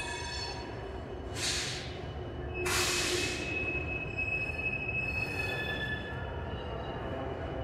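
Diesel locomotives rumbling at low speed while their wheel flanges squeal on the curved track in high, drawn-out tones. Two short hisses of air come about one and a half and three seconds in; the second is the loudest.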